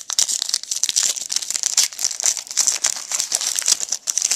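Foil trading-card pack wrapper crinkling and crackling as it is handled and torn open.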